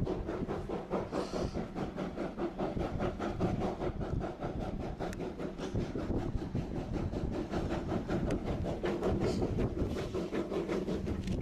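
A large machine running steadily with a fast, even rattling pulse.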